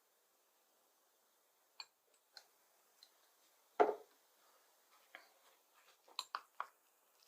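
Scattered light clicks and knocks of a spoon against a bowl as honey, garlic and black seed powder are handled, with one louder knock near the middle and a quick run of clicks near the end.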